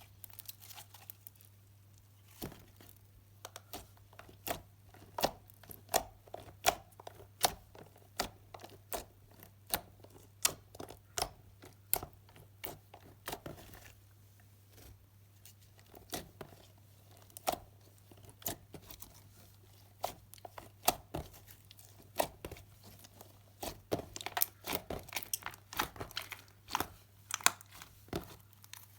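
Slime being pressed and stretched, giving sharp, irregular pops and crackles, a few a second in bursts, over a faint steady low hum.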